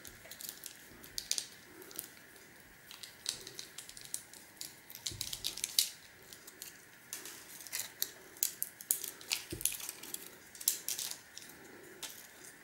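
Small plastic and metal parts of an optical drive's pickup assembly being pried and pulled apart by hand, a scatter of light, irregular clicks and ticks.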